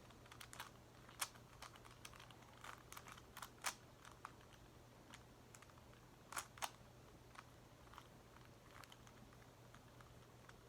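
Plastic Megaminx puzzle being turned by hand: faint, irregular clicks and clacks as the faces rotate, a few sharper ones about a second in, near four seconds and twice in quick succession past six seconds, over a low steady hum.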